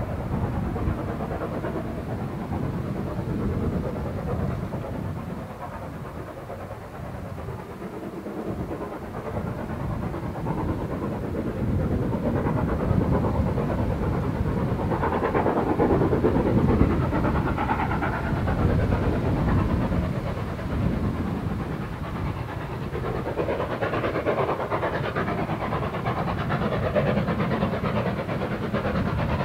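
Steam locomotive, LSWR S15 4-6-0 No. 506, heard approaching with a train before it comes into view. Its working grows louder from about ten seconds in.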